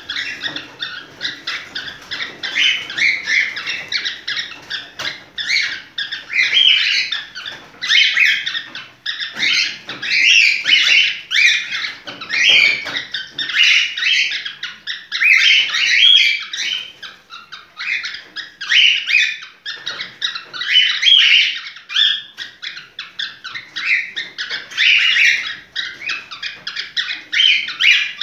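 High-pitched animal squeaking and chirping, a dense string of short calls that goes on without a break.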